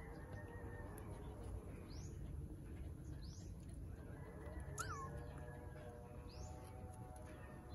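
A bird chirping repeatedly in the background: short, high chirps that fall in pitch, one about every second or so, over a low steady hum. About five seconds in there is a single brief squeak sliding down in pitch.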